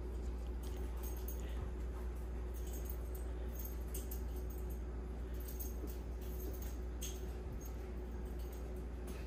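A dog moving about, with scattered faint clicks and light jingles, over a steady low electrical hum.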